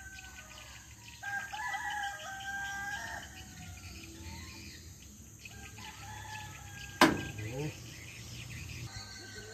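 A rooster crows about a second in, a drawn-out call of nearly two seconds, and a weaker call follows later among faint bird chirps. A single sharp click about seven seconds in is the loudest sound.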